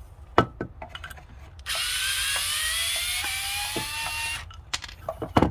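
Small cordless electric screwdriver's motor running for about three seconds, its whine rising slowly in pitch, with a few sharp clicks of the tool being handled before and after.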